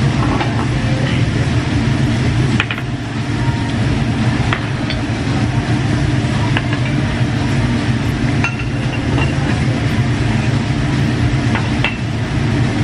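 A steady low rumble of restaurant ventilation and the tabletop barbecue grill, with scattered light clinks of chopsticks and tongs against dishes and the grill.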